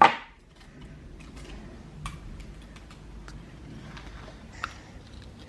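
Toy packaging being worked at by hand, opening with a brief loud rustle and then scattered light clicks and taps as it resists.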